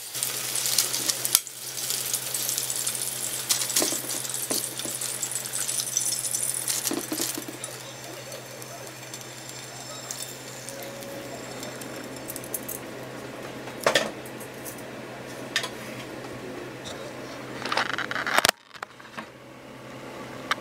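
Freshly pan-fried chicken sizzling and crackling for the first several seconds, then quieter, with a few sharp clinks of utensils and pieces set against a glass baking dish. A steady low hum runs underneath.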